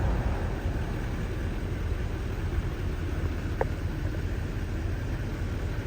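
Wind buffeting the microphone: a steady rushing noise with a fluctuating low rumble.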